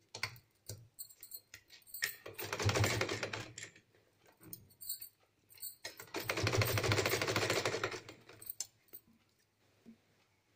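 Sewing machine stitching in two short runs, about a second and then about two seconds, with light clicks in between. The runs are forward-and-back passes over a cloth tie strap to fasten it securely.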